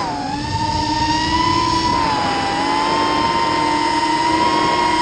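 FPV racing quadcopter's electric motors and propellers whining at high throttle, heard from the drone's own camera with wind rush. The pitch holds fairly steady with a slight sag about halfway through.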